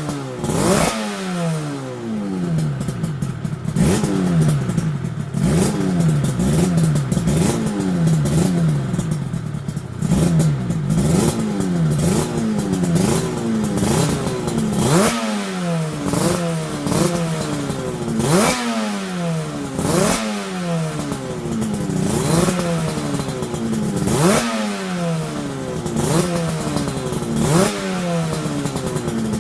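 Yamaha TZR250 3MA two-stroke parallel twin on new JL expansion chambers, idling and being blipped again and again: the revs shoot up sharply and fall back to a burbling idle every second or few.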